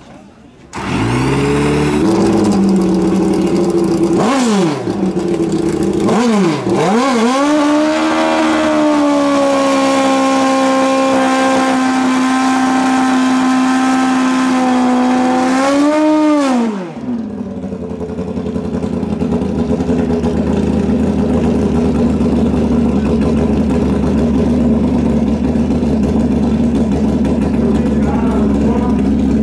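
Drag-racing motorcycle engine fired with an external starter cart, catching about a second in, blipped twice, then held at high revs for a burnout with the rear tyre spinning. About seventeen seconds in the revs drop and it settles to a steady idle.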